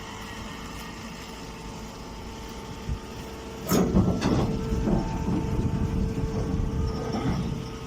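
Small square baler running with a steady mechanical hum, baling corn stalks. A little past halfway a loud burst of crunching and knocking starts as stalks are taken in and pressed, and goes on for several seconds before easing off.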